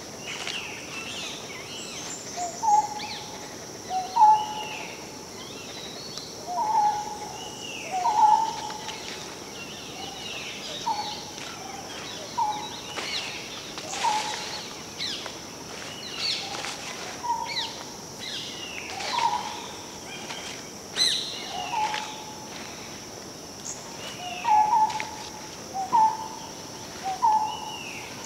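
Forest birdsong: one bird repeats short, low two-note calls every second or two, while other birds give higher down-slurred calls. A steady high insect drone runs underneath.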